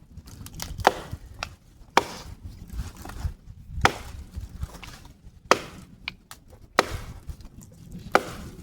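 Wood being chopped for firewood from a fallen tree: six sharp blows about one to two seconds apart, with a few lighter knocks between them.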